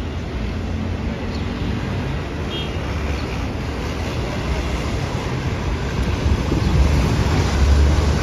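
Articulated city bus engine running as the bus pulls through an intersection, a low rumble that grows louder about six seconds in, over general street traffic noise.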